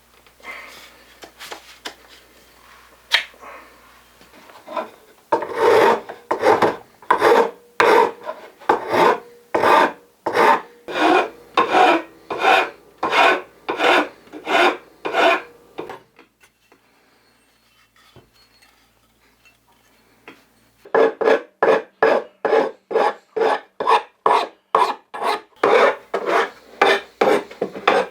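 A hand file or rasp worked in steady back-and-forth strokes, about two a second, with a pause of a few seconds in the middle before the strokes resume at a quicker pace.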